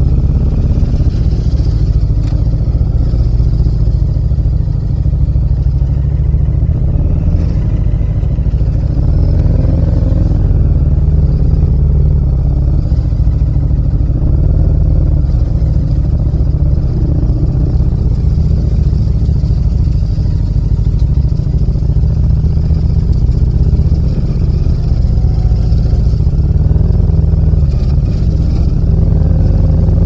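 Yamaha MT-07's 689 cc parallel-twin engine running through an aftermarket muffler with a nearly 4-inch outlet, giving a steady, loud, deep rumble as the bike rolls slowly in traffic.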